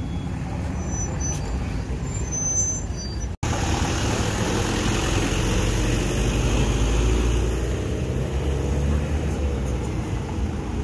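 Vehicle engines running as vehicles pull slowly past: an old GMC pickup truck drives off, then, after a sudden cut about three seconds in, a deeper steady engine rumble rises and fades as a flatbed tow truck and a car go by.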